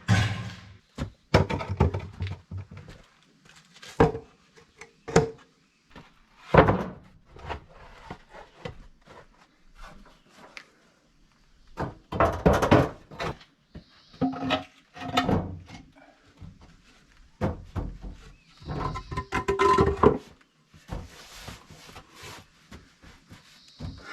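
Irregular thuds and knocks of hand construction work as materials are handled and set in place for pouring concrete. Some of the knocks come in short clusters with a brief scraping or ringing.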